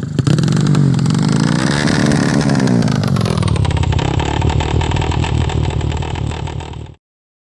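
Tuned drag-racing motorcycle engine revving hard: the pitch climbs over the first two seconds and falls away, then holds at a steady high rev before cutting off suddenly near the end.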